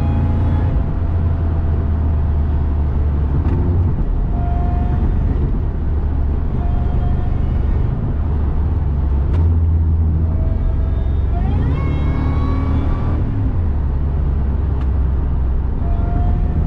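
2002 Ford F-150 SVT Lightning's supercharged 5.4-litre V8 pulling hard on the road: a deep engine drone with the supercharger's whine riding on top. About twelve seconds in, the whine climbs steeply as the truck accelerates, then drops back.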